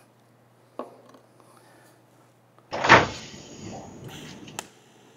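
Quiet room tone with a small click about a second in, then a sudden loud noisy hit near the middle that fades away over about two seconds and ends in a sharp click: an editing transition sound effect.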